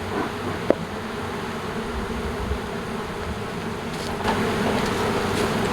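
Honeybees buzzing around their hives in a steady, dense drone that grows slightly louder near the end, with a single sharp click under a second in.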